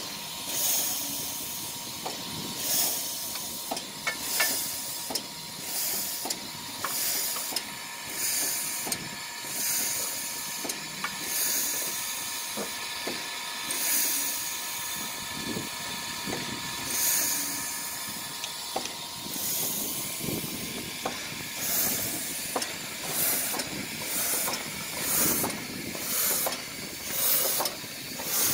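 Soviet L-class 2-10-0 steam locomotive Л-2180 hissing steam in rhythmic bursts, about one every second and a half at first and coming faster in the last third, the beat of a steam engine's exhaust as it gets under way, over a steady background hiss.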